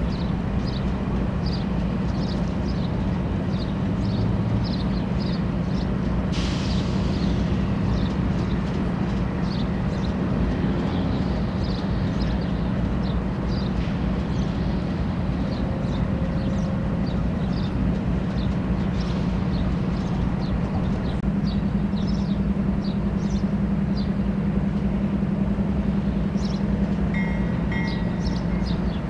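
CN diesel locomotive engines running with a steady low drone, and a sharp hiss of air about six seconds in.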